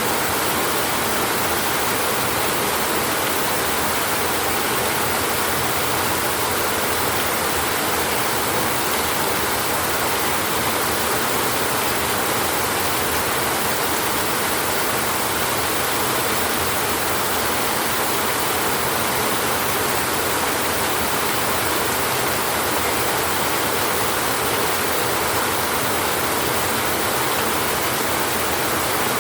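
Steady rain on a tin roof, an even hiss with no rise or fall and no thunder.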